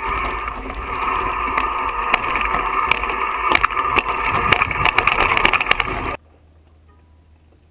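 Mountain bike rolling fast down a loose, rocky trail, heard through a handlebar-mounted camera: a steady rushing noise with frequent sharp clatters and knocks as the tyres and frame hit rocks. It cuts off abruptly about six seconds in, leaving faint outdoor quiet.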